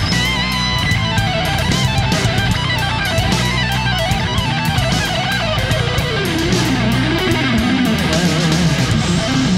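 Background rock music: an electric guitar plays a winding lead line over a steady drum beat.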